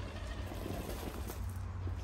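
Radio-controlled scale crawler (Traxxas TRX-4 Defender) climbing a leaf-covered bank: its electric drivetrain running under load, with dry leaves and twigs crackling under the tyres.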